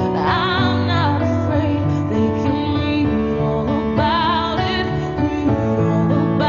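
Music: a woman singing sustained notes with vibrato over held accompaniment chords.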